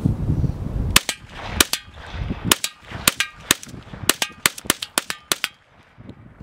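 Ruger LC Carbine in 5.7x28mm fired semi-automatic in a rapid string of well over a dozen shots, starting about a second in and ending about five and a half seconds in, some shots followed by a short ringing. Wind buffets the microphone before the first shot.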